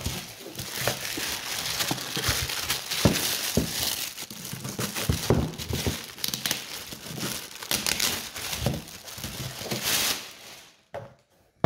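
Clear plastic bag crinkling and rustling as it is pulled off a hard plastic carry case, with scattered sharp clicks and knocks in the handling; it dies away about ten and a half seconds in.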